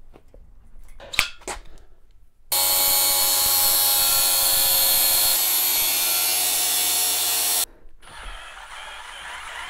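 A few clicks from a hand riv nut tool, then an angle grinder cutting 60 by 60 steel box section: a loud, steady, whining sound that starts and stops abruptly. Near the end, a drill boring into the steel tube, much quieter.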